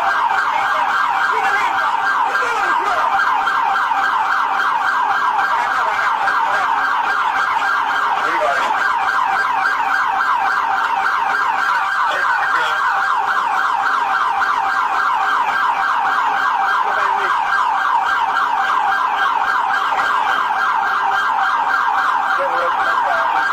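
Police car siren sounding continuously in a fast yelp, its pitch sweeping rapidly and repeatedly, until it cuts off suddenly at the end.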